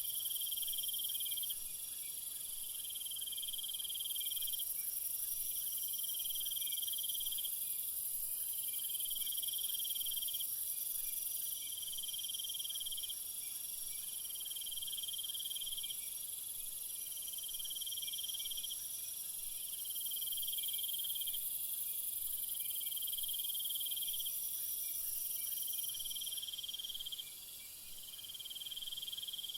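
Night insect chorus: crickets trilling in repeated bursts of a second or so, about every two seconds, over a steady high-pitched insect hiss.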